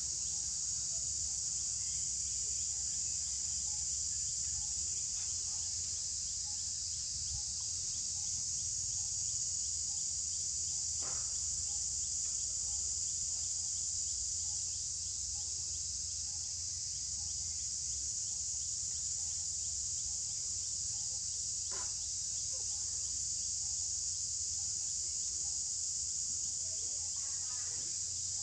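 Steady high-pitched drone of insects, unbroken throughout, over a low background rumble; a faint brief call cuts in twice, about a third and three-quarters of the way through.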